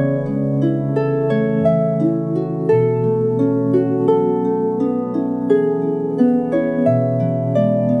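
Ancient Greek lyre music: a melody of plucked string notes, several a second, over sustained low notes that change pitch about three seconds in and again near the end.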